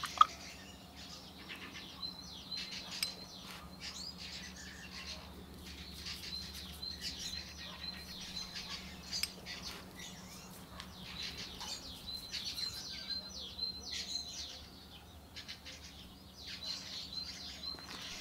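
Small birds chirping and singing throughout, with quick runs of repeated high notes, over a faint steady low hum. A single sharp tap sounds just after the start.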